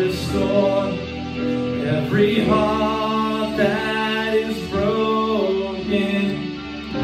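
Music: a man singing held notes without clear words while playing chords on an electric keyboard.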